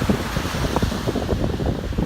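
Ocean waves washing on a beach, heavily overlaid by wind buffeting the microphone in a dense low rumble.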